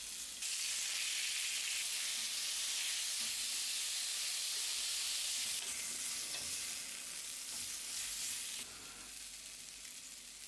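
Food sizzling as it fries in a hot pan: a steady hiss that drops noticeably in level near the end.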